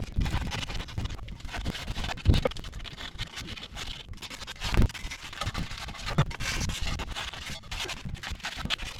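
Coarse sandpaper rubbed by hand around the rusty lip of a wheel-bearing seat, irregular scratchy strokes on steel as the surface rust comes off. A few dull knocks come in between the strokes.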